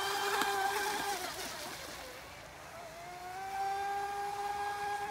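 Brushless electric motor of a 26-inch Wild Thing RC speedboat (Boat Rocket 3660, 2600kv) whining at speed with the hiss of spray. The whine fades and sags in pitch about two seconds in, then rises back and holds steady.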